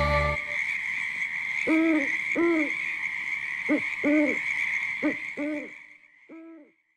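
Owl hooting: a series of about eight short hoots over a steady high hiss that fades away near the end. A music track stops about half a second in.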